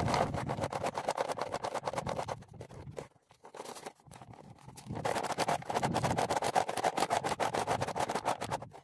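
Dehaired deer hide being worked back and forth over the edge of a plastic sawhorse: a rapid crinkling, scraping rub in two spells, with a pause of about two seconds in the middle. This is breaking the drying hide down to soften it into buckskin.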